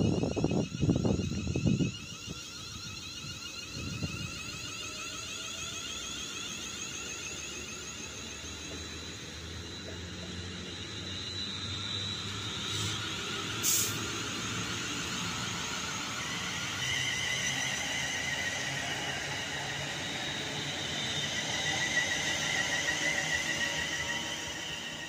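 Class 350 Desiro electric multiple unit pulling away, its traction equipment giving a layered electric whine of several tones that slowly rises in pitch as it gathers speed. Wind buffets the microphone for the first couple of seconds, and a single sharp click comes midway.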